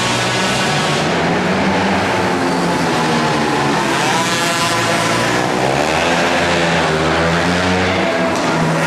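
Several youth mini quad engines racing together, their pitches rising and falling as the riders throttle up and ease off.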